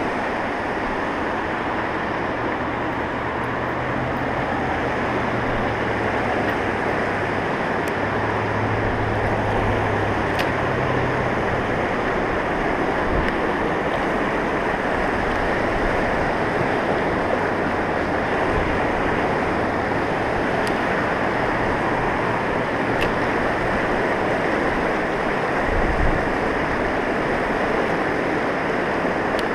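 Fast river whitewater rushing over rocks in a steady, loud wash.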